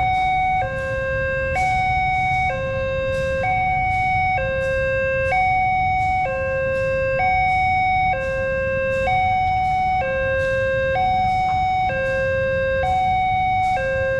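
Railway level crossing warning alarm sounding: an electronic two-tone signal that steps between a higher and a lower note about once a second, over a steady low rumble. It is the warning that a train is approaching and that the crossing is closed to road traffic.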